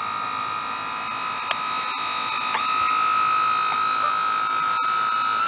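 Sea Hawk RC boat's electric motor running on the water, a steady high-pitched whine that dips briefly in pitch about halfway through.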